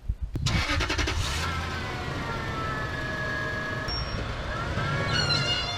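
Lexus GX470's V8 engine starting up, catching about half a second in and then idling with a steady low rumble.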